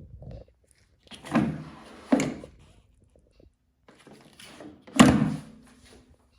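Knocks and thuds from handling a Gorenje washing machine: a dull thunk about a second in, a sharp knock just after two seconds, and a loud slam about five seconds in, after which the metal body rings briefly with a low hum.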